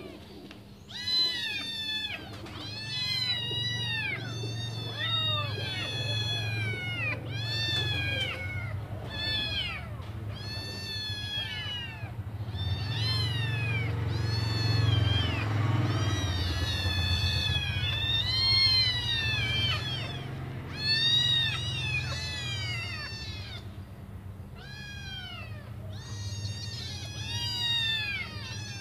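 A litter of five kittens meowing nonstop, many short high-pitched calls overlapping one another. These are hungry kittens crying for their mother to come back and feed them.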